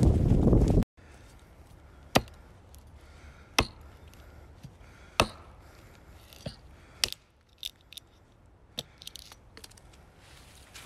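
A second of loud rustling from walking through leaf litter cuts off abruptly. Then a large Wenger Blade Wolverine knife chops at a dead tree trunk to take off a branch stub: three sharp chops about a second and a half apart, then several lighter knocks.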